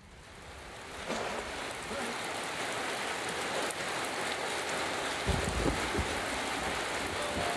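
Steady rain falling, an even hiss that swells in over the first second, with a few low thumps about five to six seconds in.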